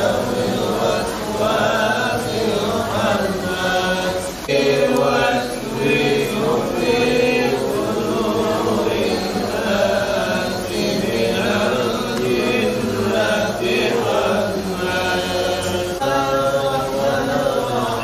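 A group of voices chanting together without instruments, an Islamic devotional chant, continuous throughout.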